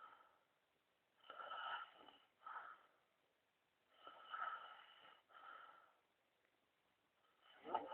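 A man snoring in his sleep: faint snoring breaths, each in two parts, coming roughly every three seconds, with a much louder snore starting right at the end.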